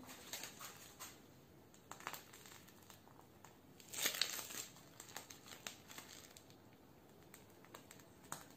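Faint rustling of a piping bag being squeezed as cream is piped onto a cake, with a louder rustle about four seconds in.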